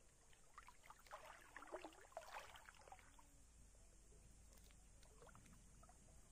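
Faint splashing and sloshing of river water, mostly in the first three seconds, with a few quieter splashes later.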